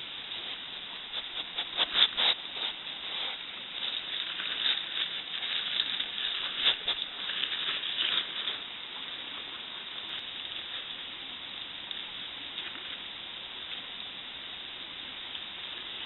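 Scratchy rustling and brushing as an animal's fur rubs against the trail camera, in flurries from about a second in until about eight and a half seconds, over the steady hiss of the camera's microphone.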